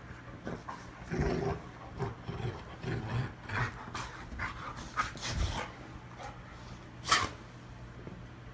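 Two dogs roughhousing in play, making a run of short, uneven bursts of noise, with one sharp, loud burst about seven seconds in.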